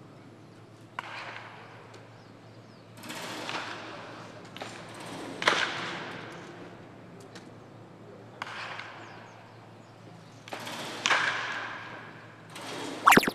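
Wooden baseball bat cracking on balls in soft-toss batting practice, about six hits spaced two to three seconds apart, each crack echoing in an indoor practice hall.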